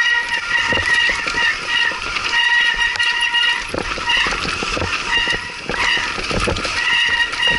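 Mountain bike brakes squealing while held on through a steep descent, a steady high squeal in several tones that eases off for a moment in the middle and comes back. Under it the bike knocks and rattles over the rough dirt trail.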